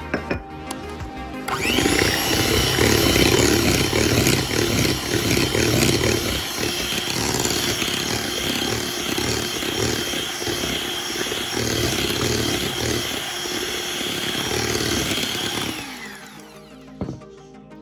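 Electric hand mixer beating cake batter in a bowl, switched on about a second and a half in and running steadily, then winding down near the end with its motor pitch falling. Background music runs underneath.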